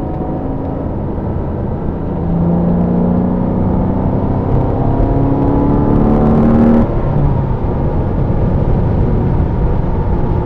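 Car engine heard from inside the cabin on a race track, accelerating hard with its pitch rising steadily for several seconds, then dropping suddenly about seven seconds in before running on more steadily.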